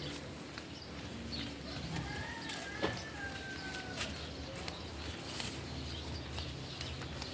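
Farmyard ambience: a long, thin whistle-like animal call that falls slightly in pitch, over a low steady rumble, with a few sharp clicks and knocks.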